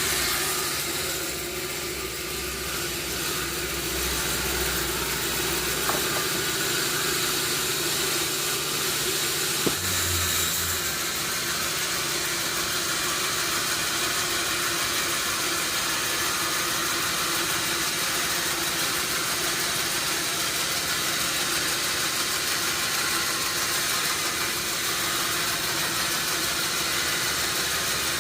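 Sawmill machinery running steadily with an engine-like hum and hiss. A low drone drops out about five seconds in and comes back briefly near ten seconds. Two sharp knocks sound around six and ten seconds.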